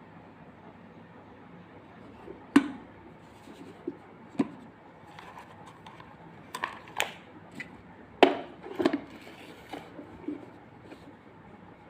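Prestige water kettle being handled: a series of sharp clicks and knocks, hard parts tapping and snapping together, with a loud one about two and a half seconds in and a cluster of them around eight seconds in.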